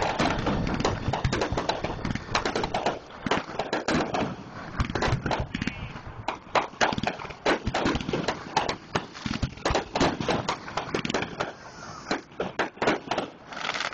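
Fireworks display: aerial shells bursting in a rapid, continuous run of bangs and crackles, several a second, with a louder bang near the end.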